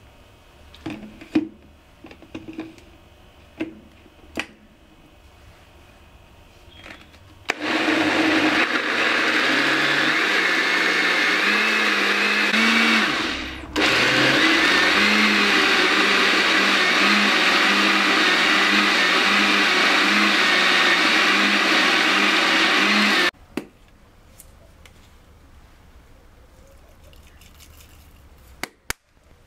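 Personal bullet-style blender with a stainless-steel motor base blending roasted red peppers and tomatoes into a smooth sauce. The motor speeds up and runs for about five seconds, cuts out briefly, then runs steadily for about ten seconds more and stops abruptly. Before it starts there are light clicks and knocks as the cup is fitted onto the base.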